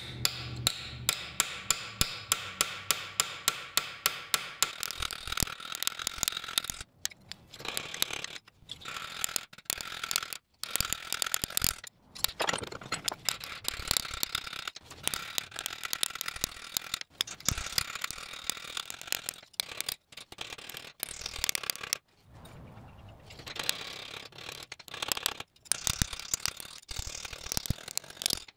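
Hammer planishing a wrought iron spoon bowl cold over a polished steel spoon stake: quick, even metal-on-metal blows, about two to three a second, each with a short ring, broken by a few brief pauses.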